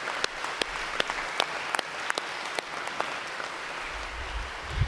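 Wedding guests and priest applauding, with single sharp claps standing out from the clapping. A low rumble comes in near the end, with a thump just before it ends.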